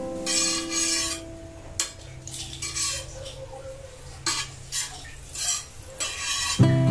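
Metal spatula scraping across a stainless steel griddle pan in several short strokes, spreading butter. Music comes back in near the end.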